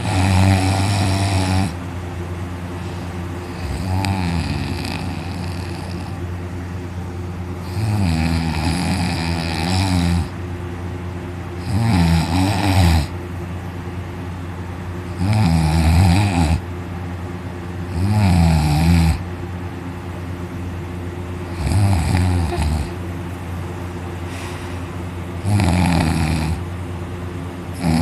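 A man snoring very loudly in deep sleep, lying on his back with his mouth wide open: a long loud snore about every three to four seconds, about eight in all, over a steady low hum.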